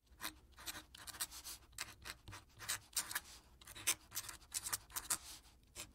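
Graphite pencil scratching on a sheet of paper in short, irregular strokes, several a second, as a sketch is begun.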